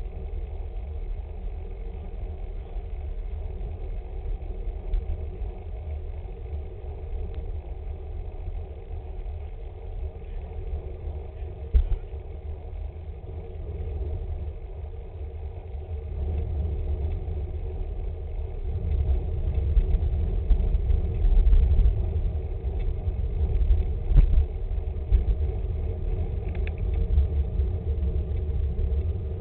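Wind buffeting the microphone of a camera on a moving road bike, a deep unsteady rumble mixed with tyre and road noise. It grows louder about two-thirds of the way through.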